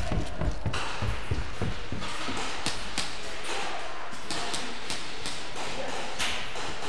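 Footsteps thudding down stairs in the first second or so, then irregular sharp taps and clicks.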